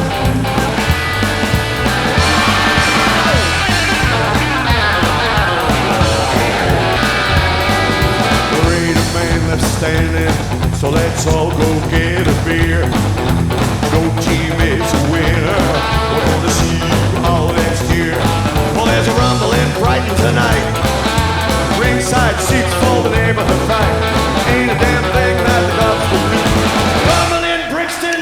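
Rockabilly trio playing live, with electric guitar, upright bass and drums, in an instrumental stretch of the song with no singing. The music dips briefly near the end.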